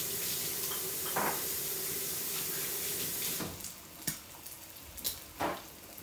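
Kitchen tap running while hands are washed under it, a steady hiss that is shut off about three and a half seconds in. A few short clicks and knocks follow.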